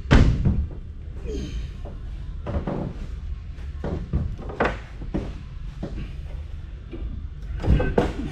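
A string of knocks and thuds from heavy metal equipment being handled and shifted: a loud bang right at the start, scattered knocks, and a quick cluster of clanks near the end, over a steady low rumble.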